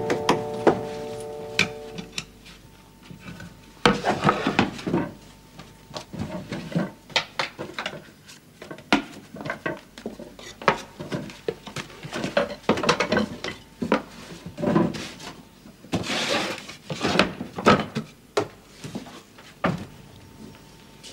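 Close-up handling of wooden boards and small objects: irregular knocks, scrapes and light clinks, busiest about four seconds in and again around sixteen seconds in. The tail of an orchestral music cue fades out in the first two seconds.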